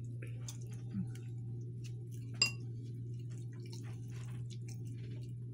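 A metal spoon scraping and scooping in a ceramic bowl of birria consommé, with one sharp, ringing clink of spoon on bowl about two and a half seconds in, over a steady low hum.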